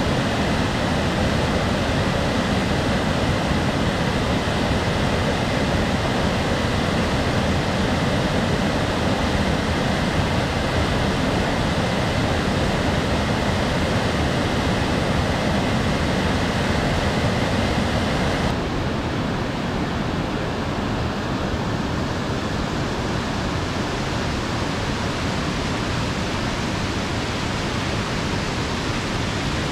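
Waterfall, a steady rush of falling water. About two-thirds of the way in, the high hiss drops away and the rush turns duller.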